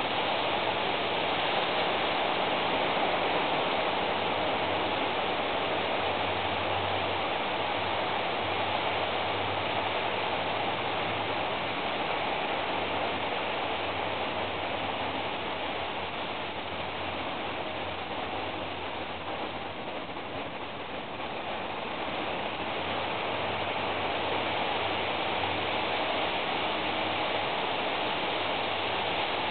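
Steady rushing noise with a faint low hum underneath, dipping briefly about two-thirds of the way through.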